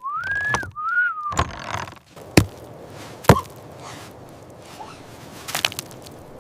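Hard blows against a door: two sharp whacks about a second apart, the second the loudest, then a few lighter knocks near the end. It opens with two short high squeaky calls that glide up and down.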